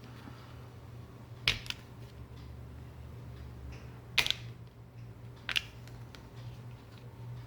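Three short, sharp clicks, at about a second and a half, four, and five and a half seconds in, over a low steady hum.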